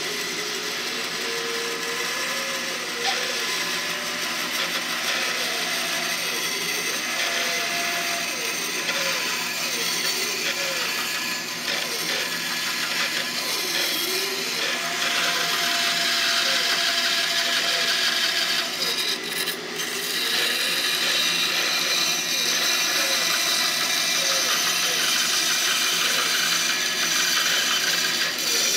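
Bench band saw running and cutting lengthwise along a hickory ax handle, a steady saw noise with a whining tone that wavers up and down as the wood is fed. The cut gets louder about halfway through.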